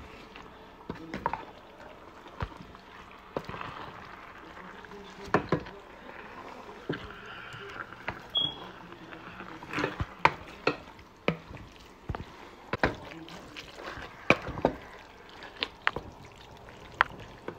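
Wooden spoon mixing noodles into a wet tomato and meat sauce in a pan: wet squelching and sloshing, with irregular sharp knocks of the spoon against the pan.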